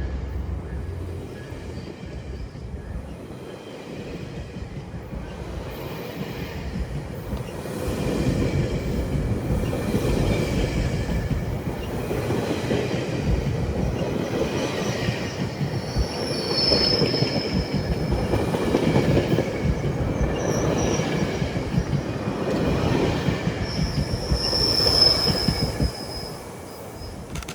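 GO Transit commuter train passing at speed: the steady rumble of wheels on rail builds up a few seconds in, with high wheel squeals twice in the second half.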